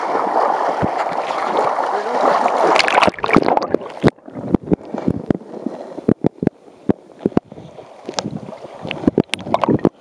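River water rushing and splashing close to the microphone, then, about three seconds in, the camera goes under the surface and the sound turns to scattered sharp clicks and knocks with muffled water between them.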